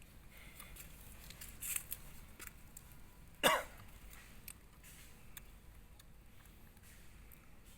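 A monkey gives one short squeak that falls in pitch about three and a half seconds in, among faint rustling and small clicks.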